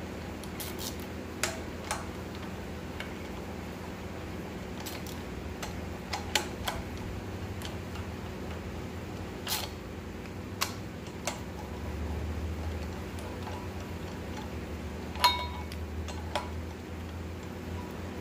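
Scattered sharp metallic clicks from a torque wrench and its socket working the flywheel bolts, irregularly spaced with a louder one about fifteen seconds in. Under them runs a steady low hum.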